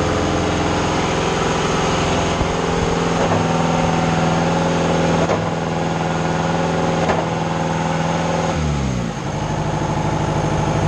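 Mayco trailer concrete pump's engine running steadily with its hydraulic pump working, a sharp knock every couple of seconds as the pistons change stroke. About eight and a half seconds in the engine speed drops and it carries on at a lower pitch.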